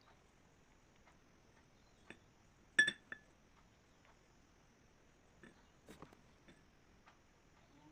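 Light taps and clicks of kitchenware while a homemade face mask is mixed, with one sharp ringing clink of glass a bit under three seconds in and a smaller clink just after.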